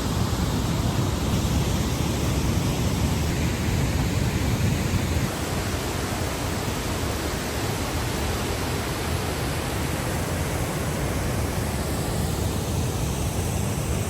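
Waterfall's steady rushing roar of falling water, dropping slightly in level about five seconds in.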